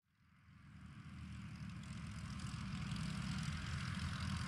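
Propeller engine of a Zlín Z-142 light aircraft running steadily on the ground, fading in from silence and growing slowly louder.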